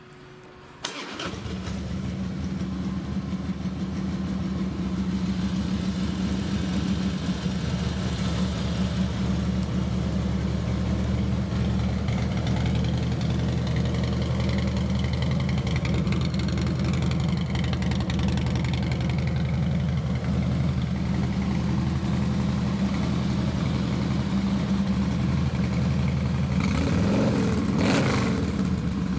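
A 2005 Harley-Davidson Fat Boy's carbureted 88-cubic-inch Twin Cam V-twin starts about a second in and then idles steadily through its Vance & Hines 2-into-1 Pro Pipe exhaust. It is briefly louder near the end.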